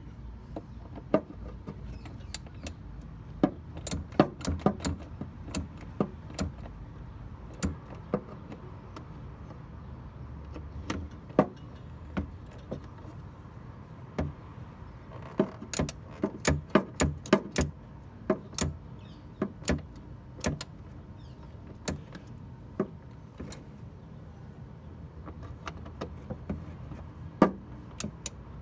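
Hand tool tightening the contact screws on a voltage regulator's terminals: sharp metallic clicks of tool on screw and terminal, singly and in quick bunches, over a low steady rumble.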